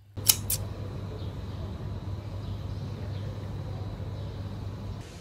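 Steady outdoor background noise by a hotel pool, mostly low rumble, beginning just after two sharp clicks a quarter second apart.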